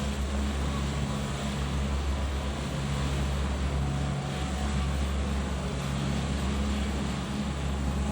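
A steady engine hum with a constant rush of noise over it, unbroken throughout.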